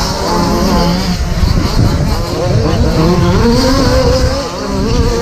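Several radio-controlled short course trucks racing on the track, their motors whining and rising and falling in pitch as they accelerate and brake, overlapping one another.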